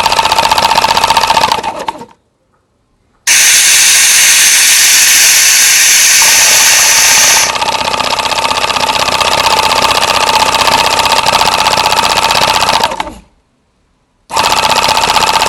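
Small homemade piston air compressor running with a fast, even chattering. It plays in three separate stretches with two abrupt short silences between them. The second stretch starts with a loud hiss for about four seconds.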